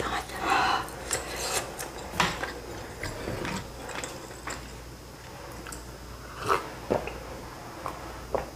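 Close-miked mouth noises after eating very spicy noodles: lip smacks, breaths and short clicks. Near the end comes a sip from a ceramic mug.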